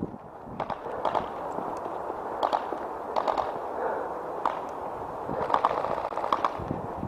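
Airsoft guns firing short bursts of rapid shots, a cluster every second or so.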